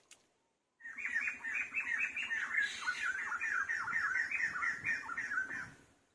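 An animal calling: a rapid run of short, squawky, falling notes, about four a second, that starts about a second in and stops near the end.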